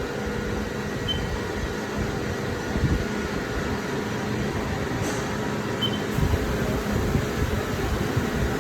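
Haas ST-30Y CNC lathe running with a steady mechanical hum and a few constant tones.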